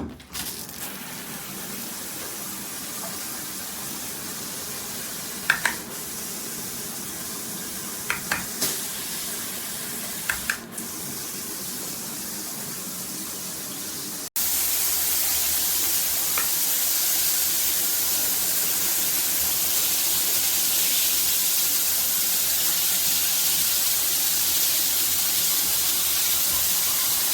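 Water spraying steadily from a handheld shower head, with a few brief sharp clicks or knocks near the middle. About halfway the spray suddenly becomes louder and hissier.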